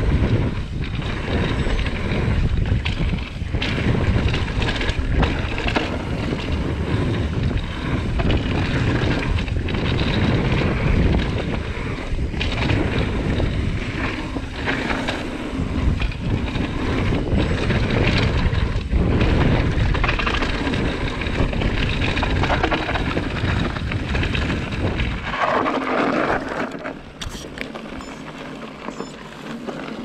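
Wind buffeting the camera microphone, with the mountain bike's tyres and frame clattering over a bumpy dirt trail at speed; about 25 seconds in, the wind rush drops away as the bike slows to a gentle roll on gravel.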